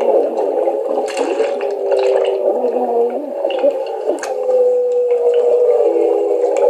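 Underwater water sounds with bubbling and dripping clicks over several held low tones that slowly shift and glide downward, played back through a speaker with a thin, narrow sound.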